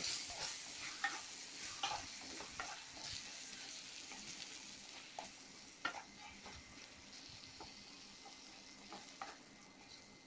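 A spoon stirring a thick dry-fish and brinjal gravy in a clay pot, with scattered scrapes and taps against the pot. Under them is a faint sizzle of the gravy cooking in its oil, fading toward the end.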